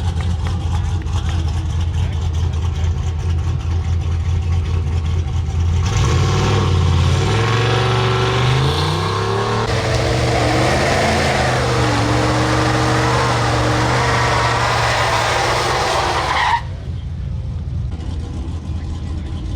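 Supercharged Ford F-150 truck engine running at a steady low drone, then going to full throttle about six seconds in. The revs climb, drop back once around ten seconds in as it shifts up, and climb again under hard acceleration. Near the end the throttle is lifted and the sound cuts off suddenly back to a low drone.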